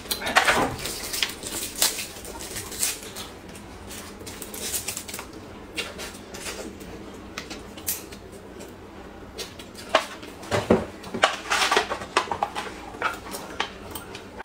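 Eating sounds as steamed buns are bitten and chewed, mixed with many short clicks and clinks of tableware and food containers, busiest about ten seconds in.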